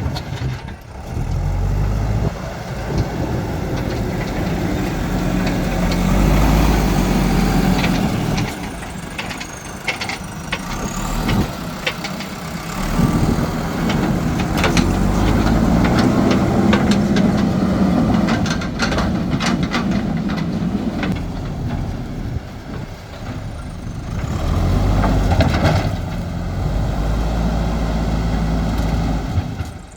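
JCB backhoe loader's diesel engine working under load, its pace rising and falling several times, with scattered knocks and rattles.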